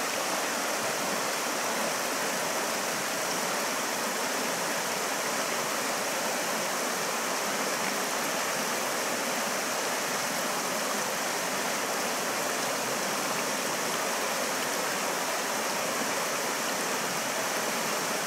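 Creek water rushing over a rocky riffle: a steady, unbroken rush of flowing water.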